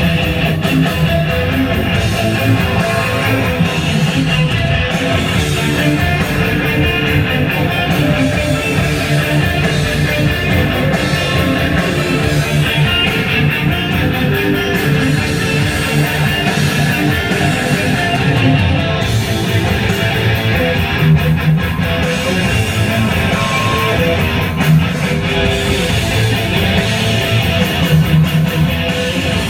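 Music with loud, steady guitar, in the manner of rock or heavy metal.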